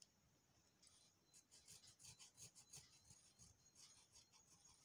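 Faint pencil strokes scratching across cotton fabric as a hand outline is traced, a few short scrapes a second.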